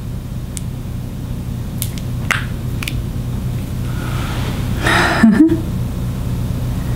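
A few small clicks and taps from handling a plastic candy gel pen and a gummy candy, over a steady low hum. About five seconds in there is a louder rustle with a brief vocal sound.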